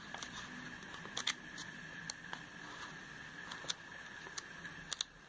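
Glossy pages of a paper sales catalogue being flipped by hand: scattered soft paper flicks and rustles, over a faint steady high hum.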